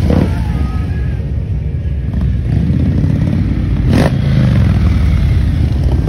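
Several V-twin touring motorcycles rumbling at low speed as they pull away one after another. There is a short sharp crack at the start and another about four seconds in.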